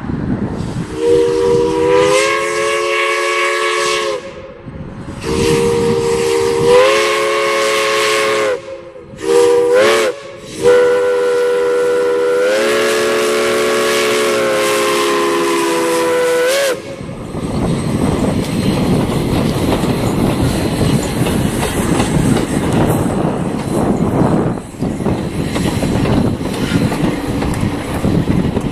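Chime steam whistle of Prairie Dog Central #3, an 1882 4-4-0 steam locomotive, blowing the level-crossing signal, several notes sounding together: two long blasts, a short one and a final long one. From about 17 seconds in, the train rolls past close by with wheels clattering over the rail joints.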